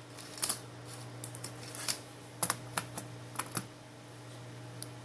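A string of light, sharp clicks and taps at irregular spacing from small phone parts being handled and fitted during a smartphone display repair. They stop about three and a half seconds in.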